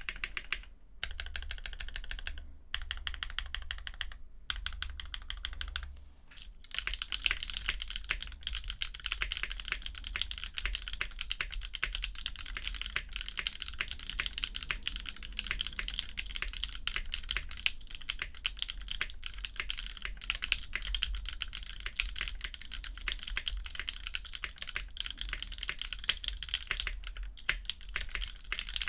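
Typing on a Sangeo60 mechanical keyboard with Owlab Tungsten linear switches, an aluminium plate and PBT keycaps: a clacky patter of keystrokes. For the first few seconds it comes in short runs with brief pauses, then settles into fast, continuous typing.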